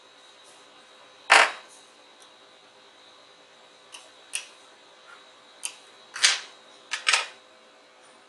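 Metal tweezers clicking and tapping against an LED backlight strip. There is one loud sharp click about a second in, then a scattering of smaller clicks, and a cluster of louder ones a little past the middle.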